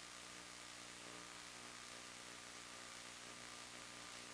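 Faint, steady hiss with a low electrical hum: static noise on the recording rather than any sound of the aircraft.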